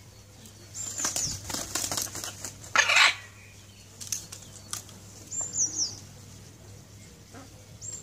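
Blue-and-gold macaw flapping its wings while perched: a quick run of wingbeats about a second in, loudest near three seconds, then a few more flaps around four to five seconds.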